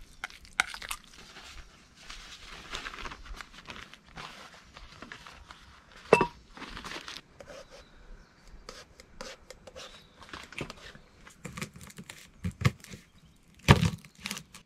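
Handling sounds: irregular rustling and crinkling with scattered clicks and knocks, one sharp knock about six seconds in and a few heavier thumps near the end.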